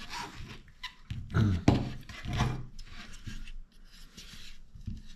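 Plastic door-panel trim and grip parts being handled: a few knocks and clicks, the sharpest a little under two seconds in, with rubbing between, as bolts are pushed into the grip.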